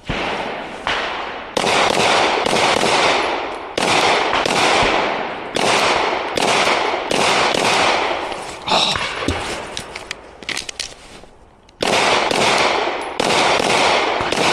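Glock 19 Gen 5 9mm pistol firing a string of shots, singles and quick pairs, each shot ringing on in a long echoing decay. Firing pauses for a few seconds past the middle, with a few faint clicks, then resumes near the end.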